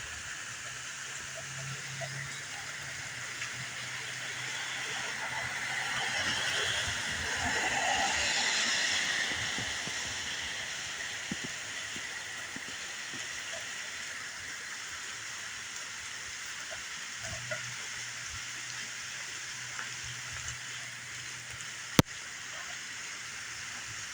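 Steady rain falling, a constant hiss that swells louder for a few seconds in the first half. A faint low hum sits under it at the start and again in the second half, and a single sharp click comes near the end.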